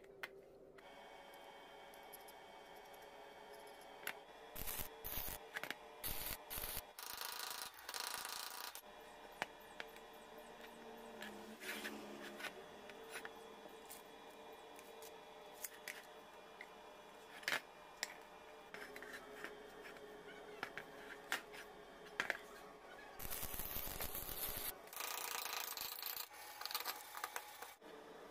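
Steel parts being handled on a work surface: a threaded rod with hex nuts and steel bar stock rubbing and scraping against each other and the surface, with a few sharp knocks. The two loudest stretches of scraping come about five to eight seconds in and again near the end.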